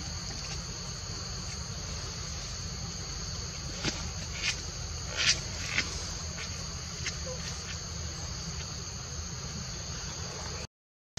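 Steady high-pitched drone of insects in the forest, with several short sharp clicks near the middle.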